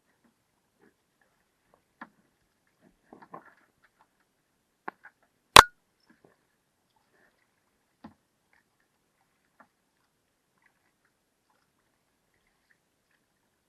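A few scattered small knocks and clicks over near silence, with one much louder, sharp click about five and a half seconds in.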